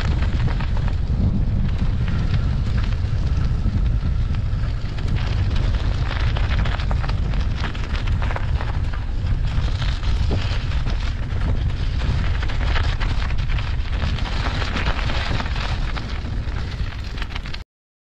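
Wind noise on the microphone of a moving bicycle, with bicycle tyres crackling and crunching over packed snow and ice. It cuts off suddenly near the end.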